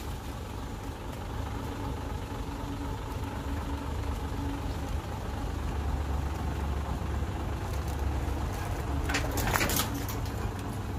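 Hyundai dump truck's diesel engine running steadily as the truck creeps forward with its tipper bed raised, unloading soil. A brief clatter of knocks about nine seconds in.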